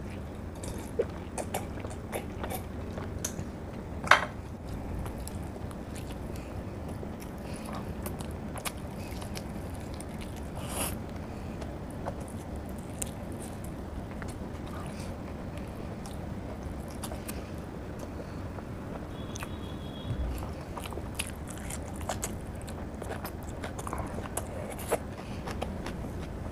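Close-up eating sounds: a person chewing food, with wet mouth clicks and smacks scattered through, over a steady low hum. One sharp knock about four seconds in stands out above the rest.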